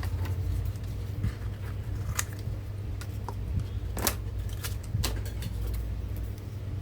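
Small clicks and crinkles of heat-resistant aluminium foil tape being handled and pressed down around a laptop board connector, the sharpest about two, four and five seconds in, over a steady low hum.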